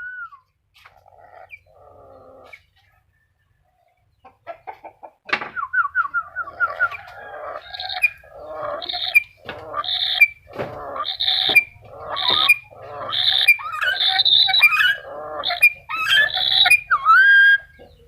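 Black-capped lory calling. After a quiet stretch, a quick trill about five seconds in opens a run of loud, harsh calls a little more than one a second, ending in a clear whistled note.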